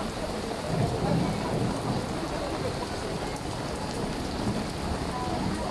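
Steady heavy rain falling on pavement and foliage, with a brief low rumble about a second in.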